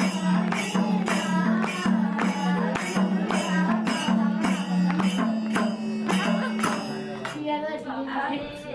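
Villagers singing a folk song, with a steady percussion beat of about three strokes a second under the voices. The beat stops about seven seconds in and the singing carries on alone.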